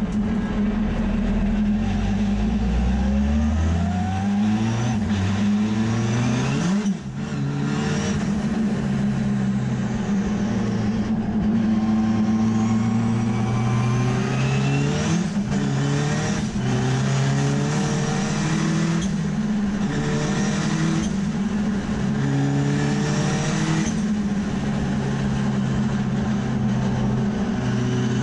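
Bridgeported rotary engine of a Mazda RX3 (808) race car under hard acceleration, heard from inside the cabin. Its pitch climbs through the gears with quick upshifts, then rises and falls through the corners.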